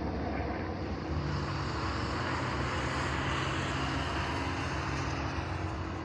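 A steady engine rumble with a rushing noise over it, building about halfway through and easing near the end.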